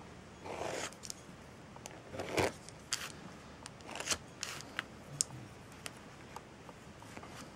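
Nail polish being scraped across a metal nail-stamping plate: a handful of short scraping swishes in the first few seconds, then a few light clicks as the stamper meets the plate.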